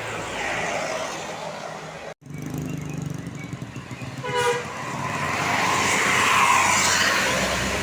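Roadside traffic with a bus passing, loudest about six and a half seconds in. About four seconds in, a horn gives one short toot. The sound cuts out for an instant shortly after two seconds.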